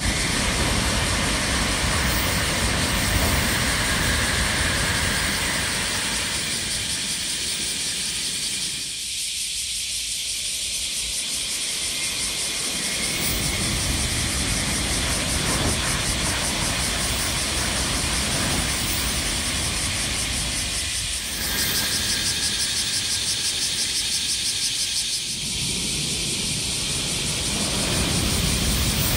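Shinkansen bullet trains passing at speed on the line below: a loud, steady hiss of wheels and rushing air that eases briefly twice as one train clears and the next comes through.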